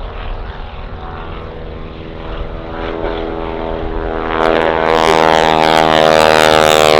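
Boeing Stearman N2S-4 Kaydet biplane's radial engine and propeller droning in flight, growing much louder about four seconds in.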